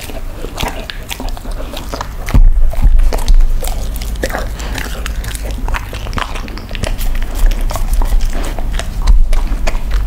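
A dog chewing a crumbly baked treat and licking crumbs off a wooden board, with irregular wet mouth clicks and smacks.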